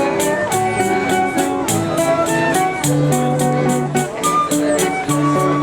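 Choro music played on guitar and other plucked strings, with sustained melodic notes over a steady high percussion beat of about four strokes a second.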